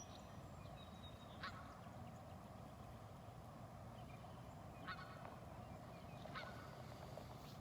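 Canada geese giving a few short, faint honks about a second and a half, five and six and a half seconds in, over a steady low background hum.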